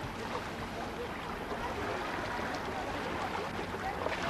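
Seaside ambience: a steady wash of sea and wind noise with faint distant voices.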